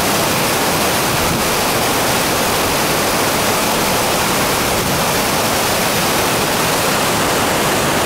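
Waterfall pouring over a rock ledge, heard from right at its lip as a loud, steady rush of falling and churning water.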